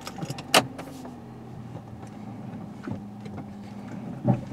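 Hyundai Elantra running at the start of a test drive, a steady low hum, with a sharp click about half a second in and a few softer knocks.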